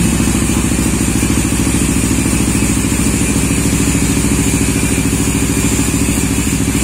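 Motorcycle engine idling steadily with an even pulse.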